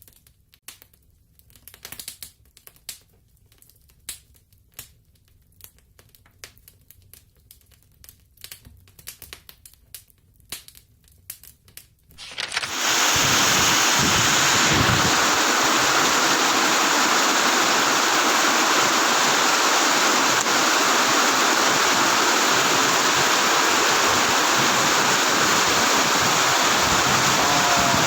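Heavy rain: for the first dozen seconds only scattered drops tick and click, then a steady downpour comes in suddenly and holds loud.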